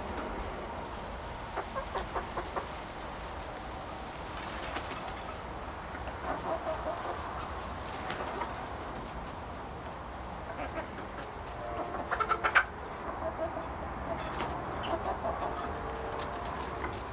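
Buff Orpington hens clucking in several runs of quick, short clucks, the loudest run about twelve seconds in.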